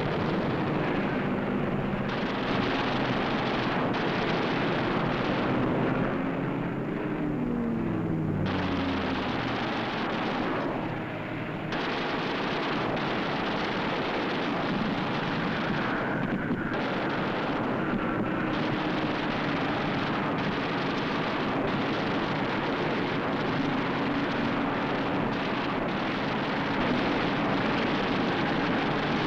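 Piston-engined fighter aircraft running over a dense noise of explosions and gunfire. About six seconds in, one engine's pitch falls steadily for a few seconds as a plane goes by.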